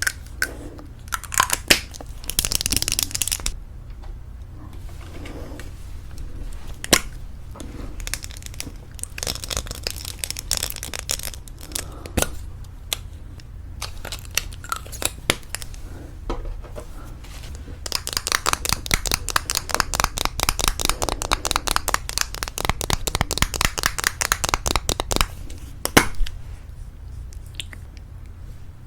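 Fingernails tapping on lipstick cases, close up, with clicks and rustling as they are handled. The longest run, a fast even series of taps, starts about 18 seconds in and stops around 25 seconds.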